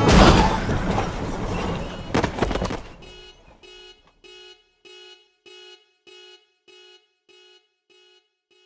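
A loud, noisy crash-like burst at the start that dies away over about three seconds, followed by a horn-like beep repeating about one and a half times a second and slowly fading out.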